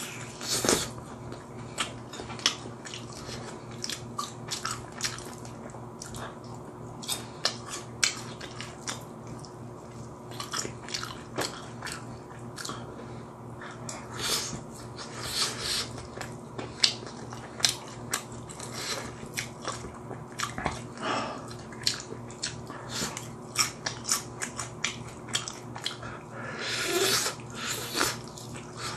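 Close-up eating sounds of a man biting into and chewing Korean fried chicken, with many short sharp clicks and smacks of mouth and crust, over a steady low hum.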